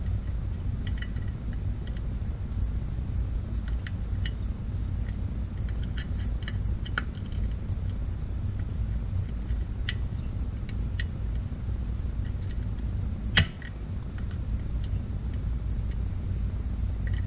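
Light clicks and clinks of small metal chainsaw parts and hand tools being handled during assembly, with one sharper click about 13 seconds in, over a steady low hum.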